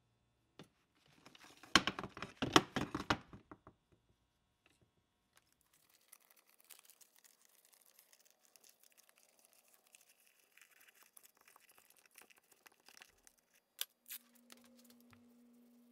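Painter's masking tape ripped off the roll in a loud burst of tearing about two seconds in, then quiet crinkling as the tape is pressed into a metal housing. Two sharp clicks near the end, then a steady low hum begins.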